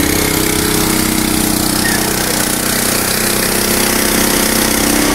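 Small engine of a portable CIPSA concrete mixer running steadily while mixing concrete for a slab pour, a loud, rattly drone.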